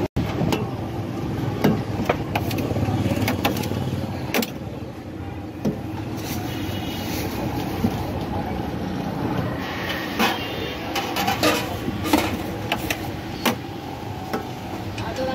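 Steady street traffic rumble, with scattered sharp clicks and knocks of steel pots, bowls and spoons being handled at a street food cart.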